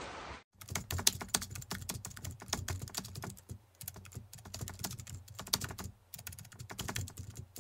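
Rapid, irregular clicking like typing on a computer keyboard, starting suddenly about half a second in, with two brief pauses along the way.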